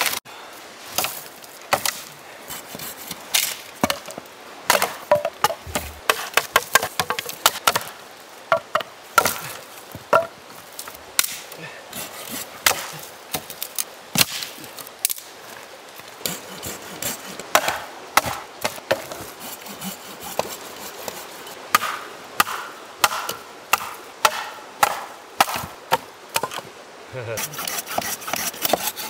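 Dry birch branches being broken up for firewood: an irregular run of sharp cracks, snaps and knocks of wood, at times several in quick succession.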